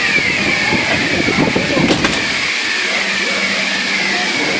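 Building fire alarm sounding a repeating tone that falls in pitch with each sweep, over a steady hiss of sprinkler water spraying. A short click about two seconds in.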